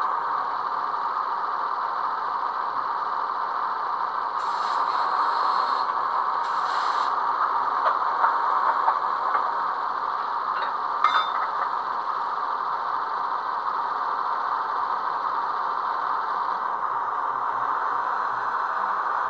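Sound decoder in a Piko H0 model of a class 106 diesel shunter, playing its recorded diesel engine idling steadily through the model's small speaker. Two short hisses come about four and a half and six and a half seconds in, and a click near eleven seconds.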